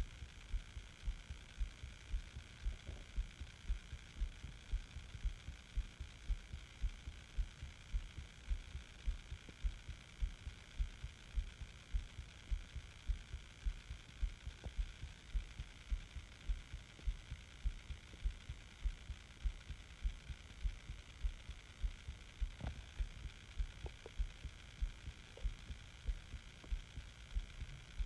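A person's heartbeat recorded close against the chest, pulsing at a steady, regular pace, with a faint steady hiss behind it.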